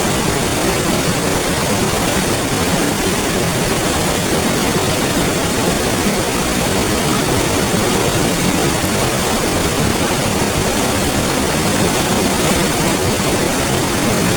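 Clear river flowing, a steady, even rush of running water.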